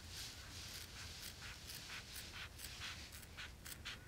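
Curved appliqué scissors trimming vinyl: faint, irregular crisp snips.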